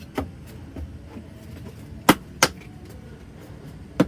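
Sharp clicks and knocks of heater parts and tools being handled during reassembly of an Espar diesel heater: one soon after the start, two loud ones close together about two seconds in, and another near the end.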